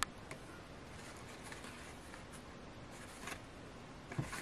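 Handling of a handmade paper journal and a cardstock tag: soft paper rustles and light taps, with a sharp tap right at the start and a few small clicks near the end.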